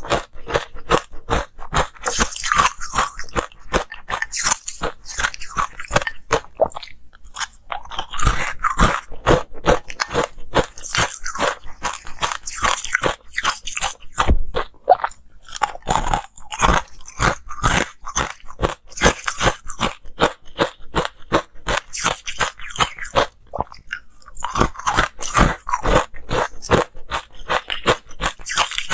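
Ice cubes coated in green powder being bitten and chewed close to the microphone. Rapid crunches come in bursts, with brief pauses between mouthfuls about a quarter, half and four-fifths of the way through.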